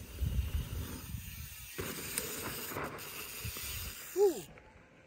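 Mountain-bike tyres rolling and skidding across loose dirt, heard as a steady gritty hiss, with wind rumbling on the microphone early on. A short shout that rises and falls in pitch comes near the end and is the loudest sound.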